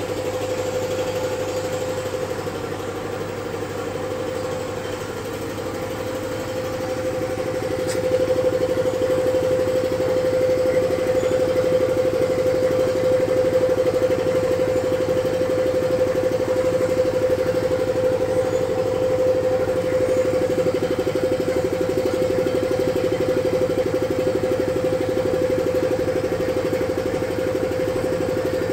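An engine running steadily with a constant whine, getting louder about eight seconds in and holding there.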